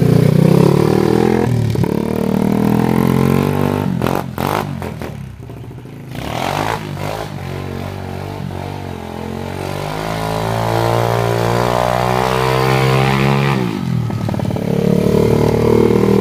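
Small pit bike engine running and being revved, with the pitch climbing steadily for a few seconds and dropping sharply near the end. The sound breaks off abruptly a few times in the middle, where the footage is cut.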